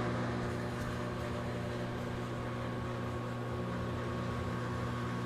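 A steady, even mechanical hum with a low droning tone, like a running appliance or fan in a small room.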